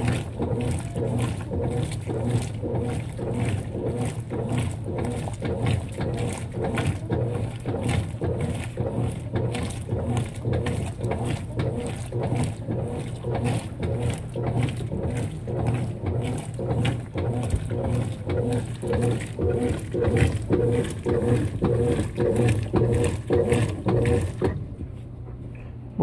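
Consul 16 kg top-load washing machine agitating, with a rhythmic sloshing of water and suds as the agitator swings back and forth over the motor's steady hum. The agitation stops near the end.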